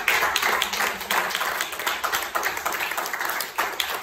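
A small audience applauding, many hands clapping at once at the end of a song.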